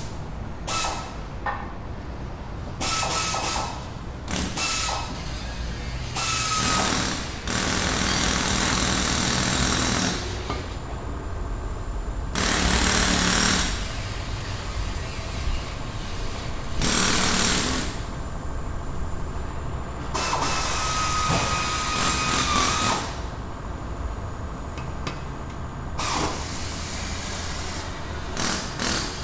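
Auto repair shop ambience: repeated bursts of air-powered tool noise and hissing air, each one to three seconds long, some with a thin whine, over a steady low hum.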